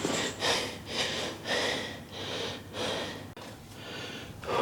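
A man breathing hard after a heavy set of leg presses: a run of short, forceful breaths in and out, about two a second, fading somewhat near the end.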